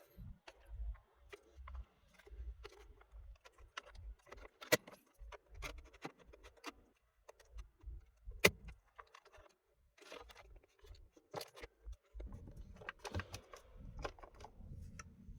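Irregular light clicks, rattles and knocks from hands working on a car's dashboard trim and steering column, with two sharper knocks about 5 and 8 seconds in.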